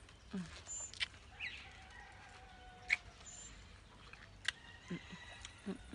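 Wet smacking and sucking of someone eating a soft, ripe fruit straight from the skin, with several sharp lip clicks, the sharpest about three seconds in.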